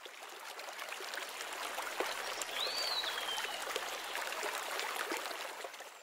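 Running water like a stream, with a rustling, ticking wash, and a single bird call about two and a half seconds in: a quick upward sweep, then a long falling whistle. It fades out near the end.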